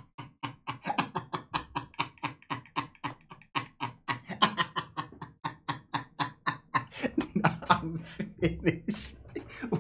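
A rapid, even run of short voice-like syllables, about six a second, with no break.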